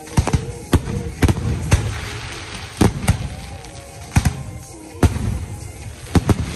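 Aerial firework shells bursting overhead in a fireworks finale: about a dozen sharp booms at irregular intervals, some in quick pairs, with rumble between them.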